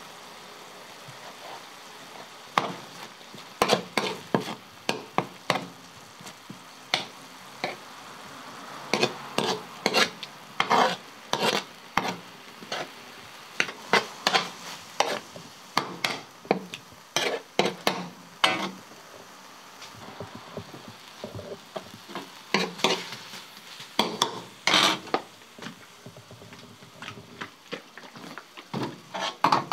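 Metal spatula scraping and clacking against a wide steel pan in quick, irregular strokes, over a steady sizzle of chopped meat frying.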